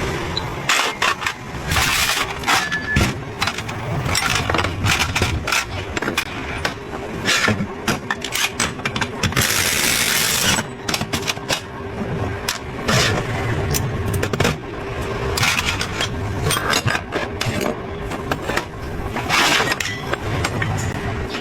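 Metal tools and scooter CVT parts clicking, knocking and clinking at irregular intervals, with a brief rush of noise about halfway through and a faint steady hum underneath.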